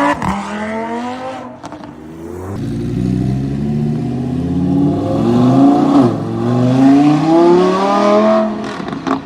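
Lamborghini Huracán's naturally aspirated V10 accelerating hard, its exhaust note climbing in pitch through the gears. The pitch drops sharply at the upshifts, just after the start and about six seconds in, then climbs again.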